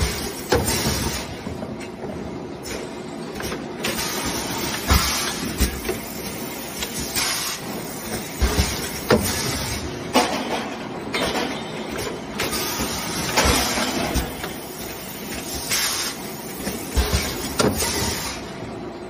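Automatic plastic-bottle blow moulding machine running through its cycles: bursts of compressed-air hiss every few seconds from the pneumatics and mould venting, with mechanical clunks and knocks from the mould clamp and bottle transfer arm in between.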